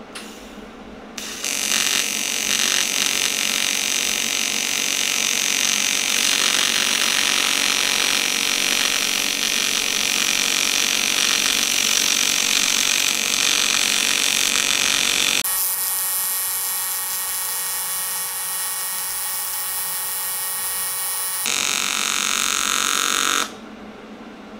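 Everlast PowerTIG 200 DV AC TIG arc welding cast aluminum: a loud, steady hissing buzz that starts about a second in. Two-thirds of the way through it drops slightly and turns into a more tonal buzz, then picks up again and cuts off abruptly near the end. The weld is starting to flow well and the casting is getting hot.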